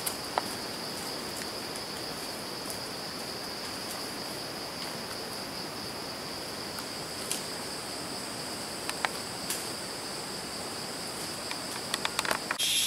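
Forest insects calling in a steady high-pitched drone, with a few faint clicks of footsteps on the leaf-littered path. Near the end it gives way to a louder, different insect chorus.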